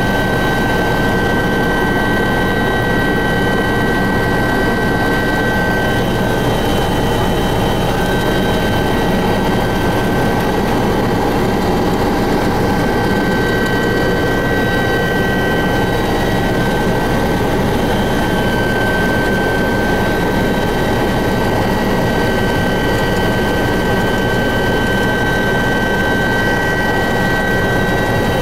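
Helicopter in flight heard from inside the cabin: a loud, steady engine-and-rotor drone with several high whining tones held over it.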